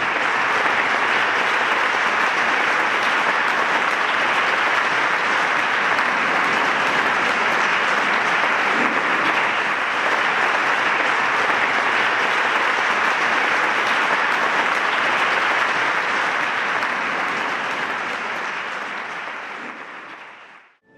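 Congregation applauding, a steady dense clapping that dies away over the last few seconds.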